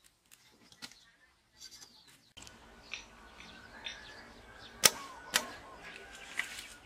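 Two sharp knocks about half a second apart from bamboo being worked by hand, among a few lighter ticks, with birds chirping in the background.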